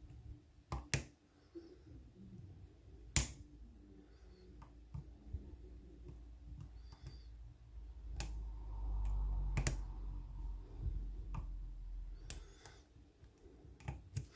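Lock pick and tension wrench working in the keyway of a 30 mm brass padlock during single-pin picking: scattered sharp metal clicks, the loudest about three seconds in and near ten seconds in, with a low rubbing rumble of handling in between.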